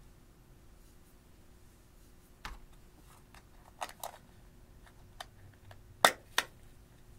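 Scattered light clicks and taps of small plastic makeup pieces being handled, then two sharp clicks close together about six seconds in as a black plastic blush compact is snapped open.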